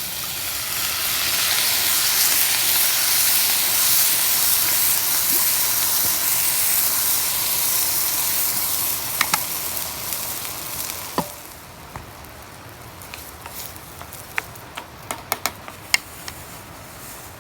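Food sizzling loudly in a hot pan over a campfire. The sizzle starts suddenly and dies down after about eleven seconds. It gives way to a faint hiss with scattered sharp clicks and pops.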